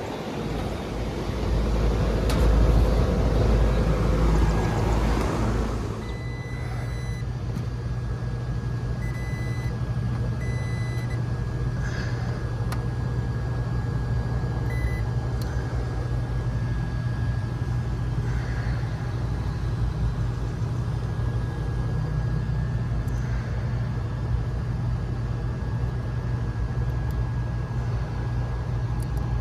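Wind buffeting the microphone for the first few seconds, then a steady low machine hum with a faint high whine, typical of a rooftop air-conditioning unit running, with a few short high beeps about seven to fifteen seconds in.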